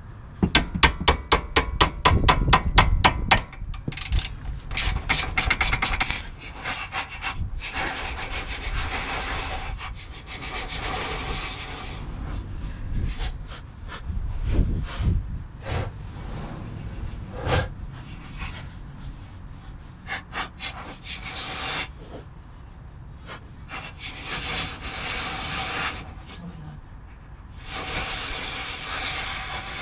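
A mallet striking in a quick run of many blows for about three seconds, then scattered knocks and scraping as the control arm's suspension parts are worked loose.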